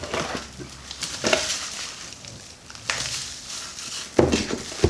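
Bubble-wrap packaging crinkling and rustling as a computer power supply is handled and lifted out of its box, with a couple of sharper knocks near the end.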